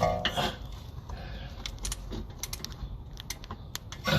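Hand tools clicking and clinking against metal while the last front wheel hub bearing bolt is being tightened, a string of small, irregular clicks.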